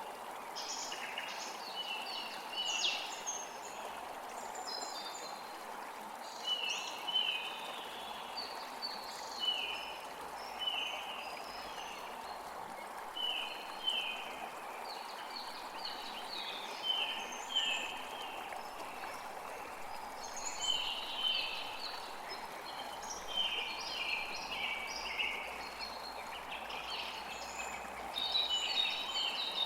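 A creek flowing steadily, with songbirds calling over the water: short falling chirps, often in quick runs of two or three, repeated every second or two.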